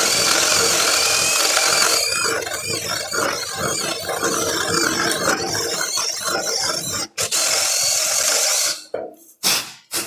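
Powerbilt PBT-CL-CID21 cordless impact drill boring a 35 mm hinge hole through 18 mm plywood, the bit chewing and rasping through the wood; it stops briefly about seven seconds in, runs again and stops just before nine seconds. Then a couple of short brushing swishes as the wood chips are swept off the board.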